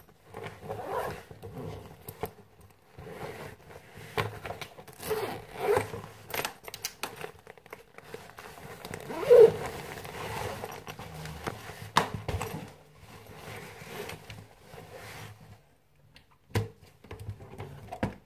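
Close handling noise of a laptop and its black case being moved about and rubbed against the microphone: irregular scraping and rustling with a few sharp knocks, the last near the end.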